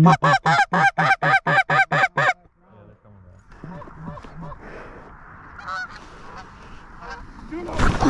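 Goose honking: a rapid, evenly spaced run of about ten loud honks in the first two and a half seconds, then fainter, scattered honking from the incoming flock. A shotgun blast starts right at the end.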